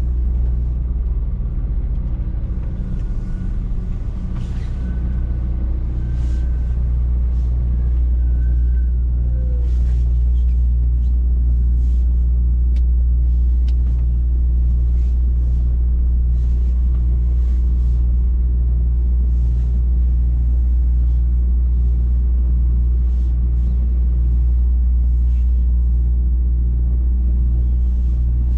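Scania truck's diesel engine running at low speed, heard inside the cab as a steady low drone, with scattered faint clicks and knocks from the cab.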